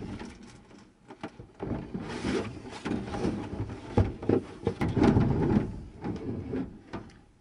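Thin plastic wall panel of a motorhome shower cubicle being bent and peeled away from its glue. It makes irregular scraping noises and several sharp knocks, which die away near the end.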